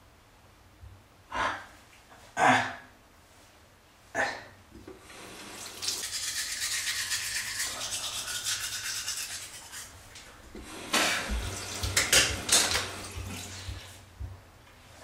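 Teeth being brushed with a toothbrush: a steady scrubbing hiss that flutters with the strokes for about four seconds in the middle. Short sharp noises come before it, and a cluster of them follows near the end.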